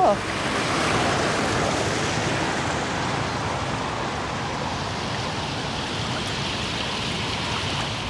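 Steady rush of water flowing and splashing through a concrete trout hatchery raceway, a little louder about a second in and easing slightly toward the end.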